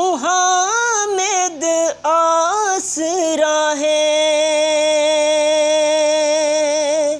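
A man singing a Saraiki naat solo in a high voice with no instruments. He runs through quick ornamented melodic turns, then holds one long note for about four seconds before breaking off.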